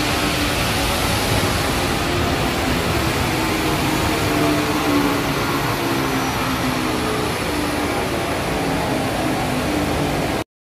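Modified Isuzu MU-X 2.5 L four-cylinder turbo-diesel running hard on a chassis dynamometer, a loud steady roar mixed with roller and fan noise. It cuts off suddenly near the end.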